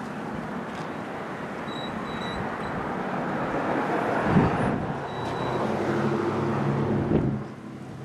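A motor vehicle's engine and road noise growing louder, with a steady low engine note, then dropping away sharply near the end.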